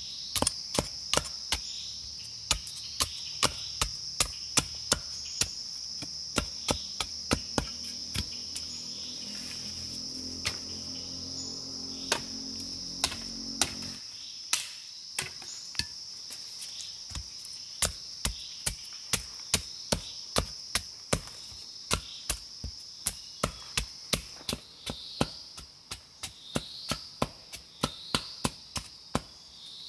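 Machete strokes chopping and shaving a wooden stick, a long run of sharp knocks about one or two a second, over a steady high chorus of insects.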